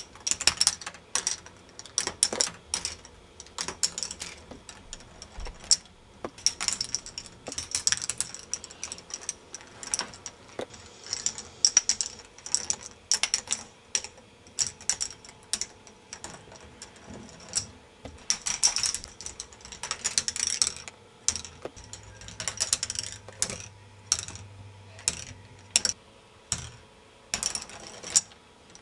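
K'nex ball machine running: plastic balls clicking and clattering along plastic tracks and lift pieces, in irregular sharp clicks with short bursts of rattling. A faint steady hum runs underneath.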